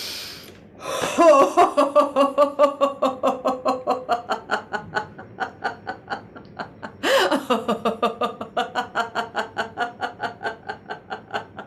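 A woman's deliberate laughter-yoga laugh: a deep breath in, then hard, continuous "ha-ha-ha" laughing from about a second in, in rapid pulses of about six a second. About seven seconds in she takes a quick breath and starts a second run of laughing.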